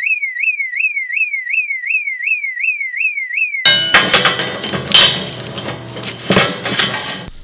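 An electronic alarm tone warbling rapidly up and down, about three times a second, which cuts off after about three and a half seconds. It gives way to a different, dense noisy sound effect full of clicks with a thin high steady whine.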